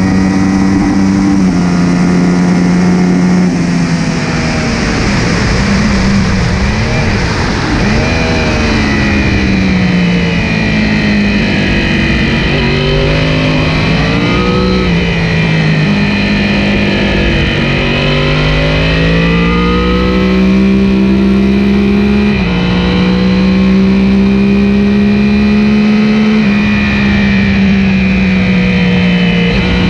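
Yamaha R1 sport bike's inline-four engine at speed on track, with wind rush over the bike. It pulls hard with two upshifts in the first few seconds, then the revs fall and rise repeatedly through a run of corners with downshifts, and hold high and steady down a straight near the end.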